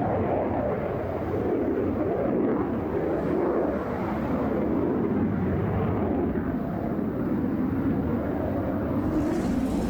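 Jet noise from a MiG-35UB's twin turbofan engines as the fighter flies past, a continuous rumble that swells and eases slightly.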